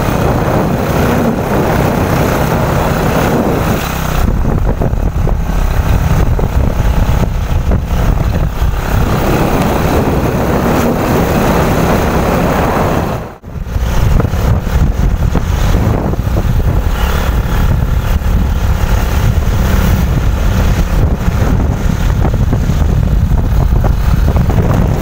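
Small motorcycle riding along at speed, its engine running under heavy wind rush on the microphone. The sound cuts out sharply for a moment about halfway through, then picks up again.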